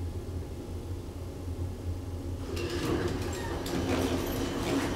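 An old 1974 KONE traction elevator car hums steadily as it rides. About two and a half seconds in, its doors slide open with a rattle of clicks, letting in outside noise.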